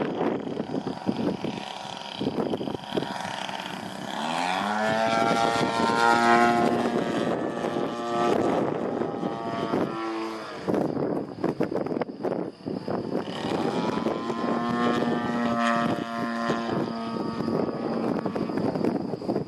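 Propeller engine of a CAP-232 aerobatic plane in flight, throttling up with a rising pitch about four seconds in, holding a steady note, cutting off abruptly near the middle, then climbing and running steady again. Wind buffets the microphone throughout.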